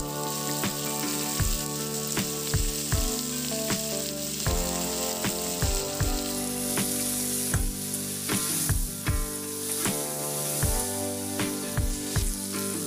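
Background music with a steady beat, over a continuous sizzle of diced potatoes frying in oil in a kadai.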